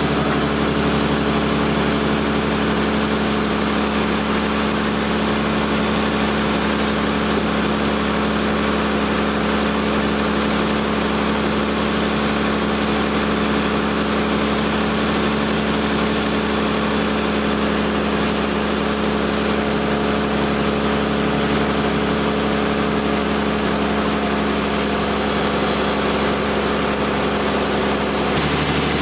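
Sawmill machinery running steadily with an even engine-like hum, its tone shifting slightly near the end.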